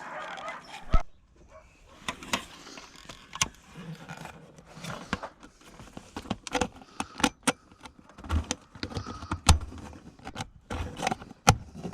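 Hands working on wiring: irregular sharp clicks, taps and rustling, with a sharp click about a second in and a few duller knocks around eight to nine seconds in.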